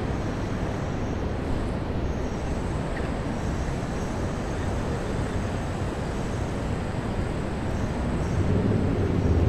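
Steady low rumble of city vehicles, growing louder near the end.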